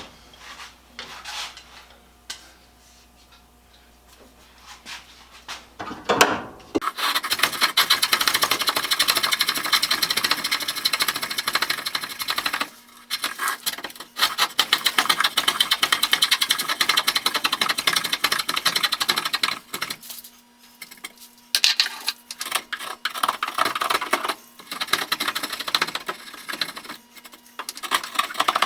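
A hand tool working wood with rapid, continuous scraping strokes. It starts about seven seconds in, after a few light knocks, and stops briefly several times.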